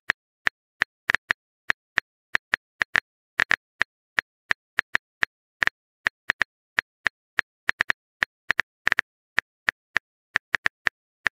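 Phone keyboard typing sound effect: a quick, uneven run of sharp key-tap clicks, about three or four a second, some coming in close pairs.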